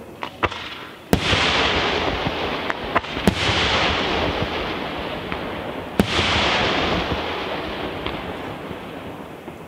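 Aerial firework shells bursting with sharp bangs: a few small ones at the start, then three loud ones about a second in, just after three seconds and at six seconds. Each loud bang trails off into a noisy wash that fades over a couple of seconds.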